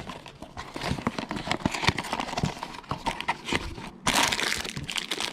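Hands handling a cardboard toy blind box: a run of light taps and clicks, then from about four seconds in a steady crinkling of the packaging as it is opened.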